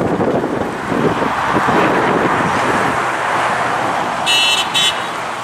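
Road traffic noise as escort pilot vehicles drive past close by: a steady rush of engines and tyres. About four and a half seconds in come two short high-pitched beeps, the second shorter than the first.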